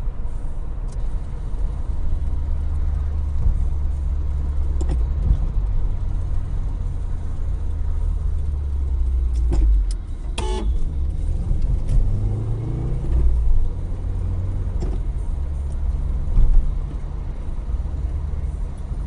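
Car driving on the road, recorded from inside the cabin: a steady low rumble of engine and tyre noise. A few short clicks or knocks break through, the most prominent about ten seconds in.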